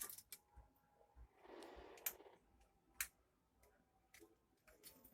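Near quiet with a handful of scattered faint clicks, the clearest about three seconds in, and a brief soft rustle about a second and a half in.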